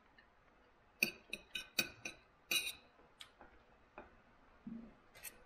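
Knife and fork clinking and scraping against a dinner plate: a quick run of sharp clinks from about a second in, then a few scattered taps.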